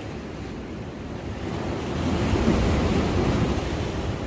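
Sea surf washing against a breakwater, swelling about two seconds in and then easing off, with wind buffeting the microphone.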